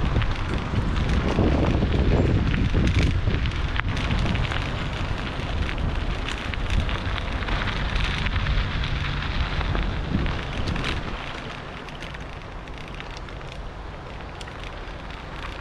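Bicycle tyres crunching over a gravel and dirt trail, with wind noise on the microphone. The noise gets quieter about eleven seconds in.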